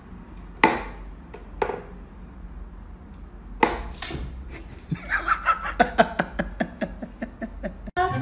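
Wooden knocks from a whack-a-mole cat toy box as its pegs are pushed to pop the toy mice up and the cat bats at them: single knocks, then from about five seconds in a fast run of short clacks, about four to five a second.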